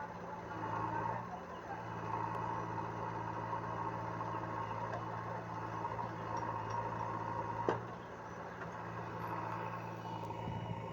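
Diesel engine of heavy machinery running steadily, with one sharp knock about three quarters of the way through.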